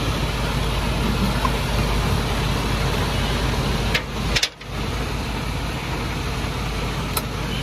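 Semi-truck tractor's diesel engine idling steadily, with a few short sharp clicks about four seconds in and another near the end as the trailer's air and electrical lines are unhooked.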